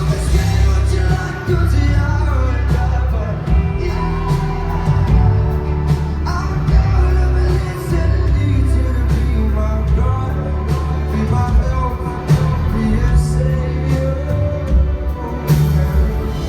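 Live band playing loudly in a hall, heavy bass and drum hits, with some singing over it.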